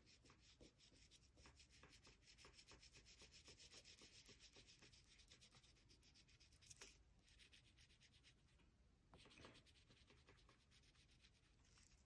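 Faint, rapid scratchy strokes of a Cray-Pas oil pastel stick being rubbed back and forth on cardboard, with a short pause about two-thirds of the way through.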